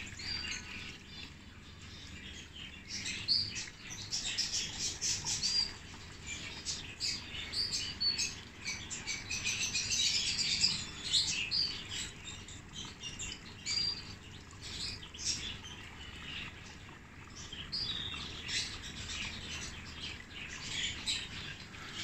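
Many small cage birds in an aviary chirping and calling, short high chirps coming thick and fast and busiest around ten seconds in, over a faint steady low hum.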